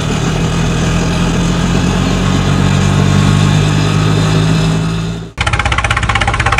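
Engine sound effects laid over toy vehicles. A small engine runs steadily, then about five seconds in it cuts abruptly to a different engine chugging in fast, even pulses.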